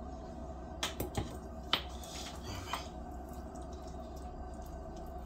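Kitchen handling noises: four short, sharp clicks and taps between about one and two seconds in, then softer wet scraping, as a metal spoon and hands work seasoning into a whole raw fish on a wooden cutting board.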